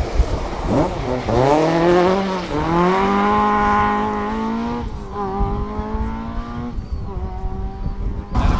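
Ford Escort Mk2 rally car's engine pulling hard away under full acceleration. The revs climb steadily and drop back at upshifts about five and nearly seven seconds in.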